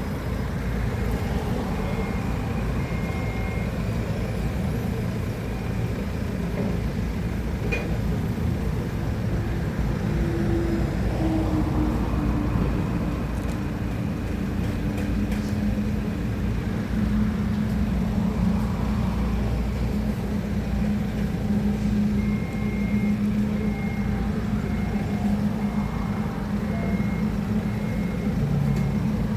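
Forklift engine running steadily while the machine works, its reversing alarm beeping in short repeated tones near the start and again through the last several seconds. About a third of the way in, the engine note drops in pitch.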